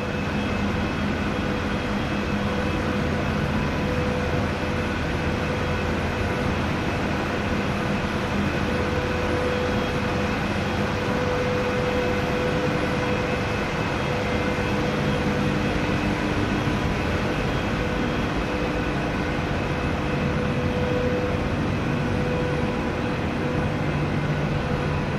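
Steady drone of heavy industrial machinery: a continuous rumble with several steady hum tones layered over it.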